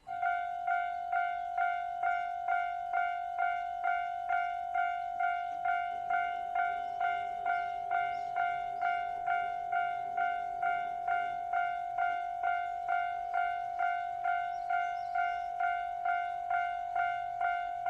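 Japanese railroad crossing's warning bell ringing in a steady, even clang about twice a second, switching on abruptly at the very start. It signals that a train is approaching the crossing.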